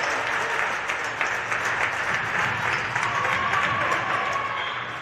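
Spectators in a sports hall clapping and calling out, dying down near the end.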